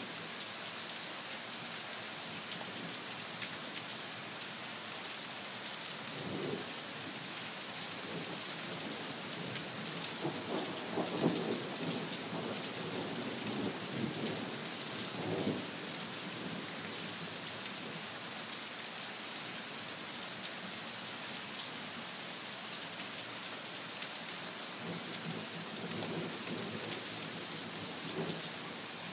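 Steady rain falling, with rolls of thunder rumbling over it: a short one about six seconds in, a longer, stronger one from about ten to sixteen seconds, and a fainter one near the end.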